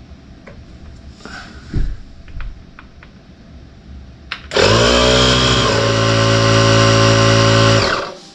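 Portable electric tire inflator starting about halfway through, its motor spinning up and then running steadily for about three seconds before it stops, pumping air into a fluid-ballasted tractor tire. Before it starts, a few light clicks and knocks as the hose and cord are handled.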